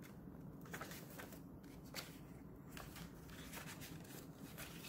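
Faint rustling of paper as pages of a handmade paper journal are turned by hand, with scattered light taps and clicks; one tap about two seconds in is a little louder.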